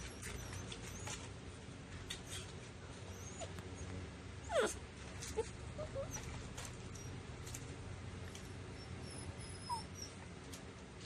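Taiwanese native dog puppies giving a few faint whimpers and yips while they play-fight; the loudest is one falling yelp about halfway through, followed by a few short squeaks.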